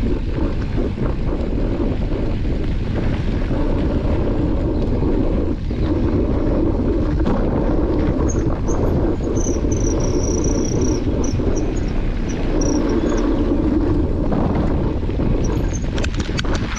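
Wind buffeting the microphone of a camera mounted on a moving mountain bike, mixed with its knobbly tyres rolling over a gravel trail: a steady, loud rush. A few faint high chirps come in about halfway through, and a short run of clicks near the end.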